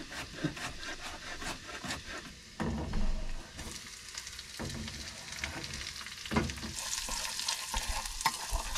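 Garlic sizzling in hot melted butter in a small saucepan, with a spoon stirring and scraping it out of the pan into a plastic bowl and a few knocks of the spoon against the pan. The sizzle grows stronger in the second half.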